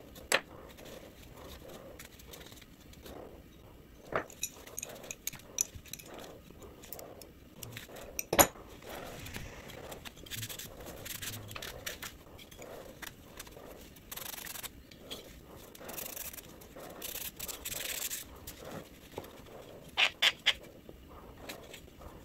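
A cloth rag rubbing over the metal parts of a small hand plane, with occasional clicks and knocks as the metal pieces are handled and set down. The sharpest knock comes about eight seconds in, and three quick clicks come near the end.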